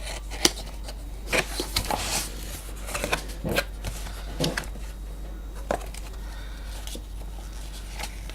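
Cardboard box and packaging being opened and handled by hand: scattered clicks, scrapes and rustles, the sharpest click about half a second in.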